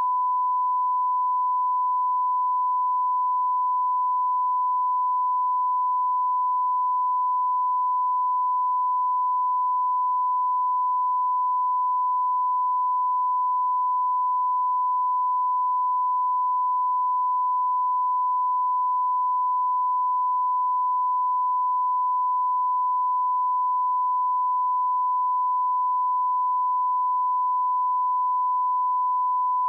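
Broadcast line-up tone: a steady 1 kHz sine tone, one unchanging pitch, the reference tone that goes with colour bars at the head of a programme master for setting audio levels.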